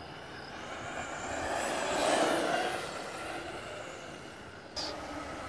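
Radio-controlled electric monster truck driving past: a rushing motor-and-tyre noise that swells about two seconds in and then fades, with an abrupt change in the sound near the end.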